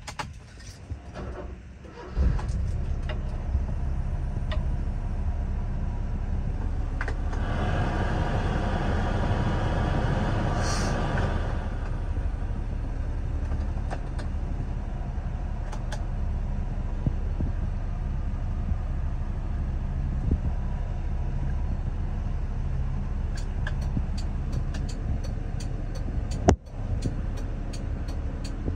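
1994 Honda Acty mini truck's small three-cylinder engine, heard from inside the cab. After a few clicks it starts about two seconds in and then idles with a steady low rumble. For several seconds in the first half it runs louder before settling back.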